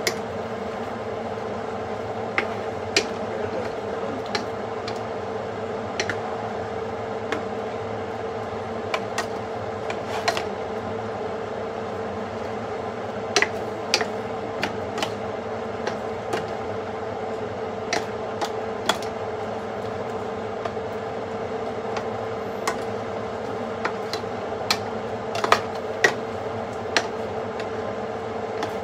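Steady mechanical hum, like a fan running, with irregular light clicks and taps scattered through it, a few louder ones near the end.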